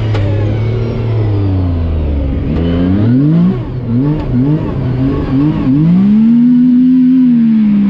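Yamaha YXZ1000R SS SE side-by-side's three-cylinder engine being driven. It runs at steady low revs at first. About three seconds in come several quick rises and falls in revs, then it holds high revs near the end.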